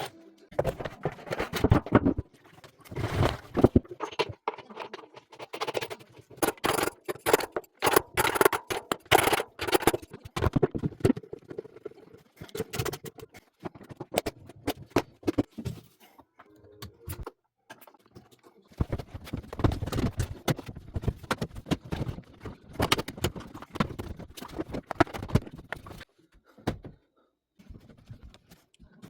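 Irregular knocks, clatters and scraping of tools on metal washing-machine parts, stopping and starting, as the machine is worked on for a bearing replacement.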